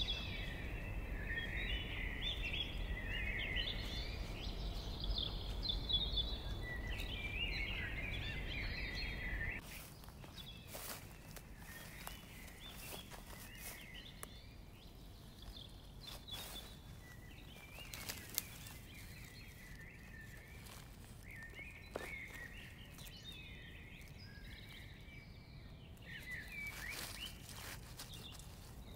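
Small songbirds chirping and calling in rapid, overlapping bursts, over a low rumble that stops abruptly about nine seconds in. Afterwards the birds go on more quietly, with scattered crackles of dry grass and leaves being handled.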